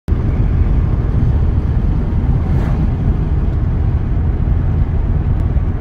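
Steady, loud rumble of road and wind noise heard inside a vehicle's cab while it drives at highway speed.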